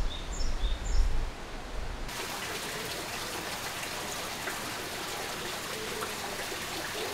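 A small bird chirping about twice a second over a low rumble. About two seconds in, this cuts to a steady rush of flowing water.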